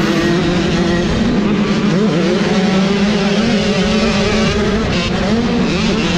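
Onboard sound of an 85cc motocross bike's engine running hard at high revs, its pitch dropping and climbing again several times with throttle and gear changes, over a rush of wind and dirt noise, with other bikes in the pack around it.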